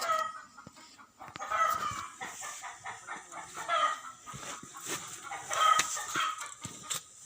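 Birds calling repeatedly, a loud call every couple of seconds.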